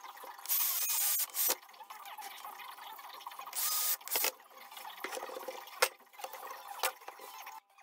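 Cordless drill-driver running in two short bursts of about a second each, near the start and about halfway through, driving screws into plywood. A few sharp knocks follow as the drill is set down and the clamps are handled.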